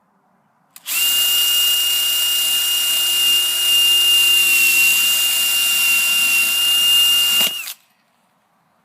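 Electric drill boring into the metal of a deadbolt lock. It starts with a click about a second in, runs at a steady high whine for about six and a half seconds, then stops.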